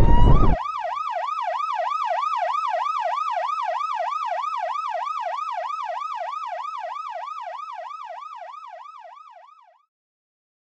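An explosion sound effect, its deep rumble cutting off about half a second in, followed by a fast rising-and-falling yelp siren, about three wails a second, that slowly fades out near the end.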